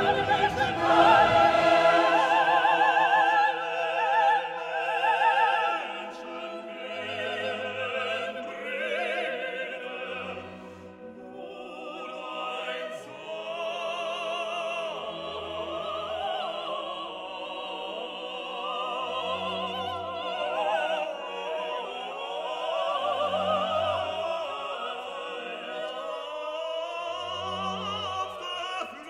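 Background classical music: operatic singing with strong vibrato over an orchestra, with low bass notes every few seconds.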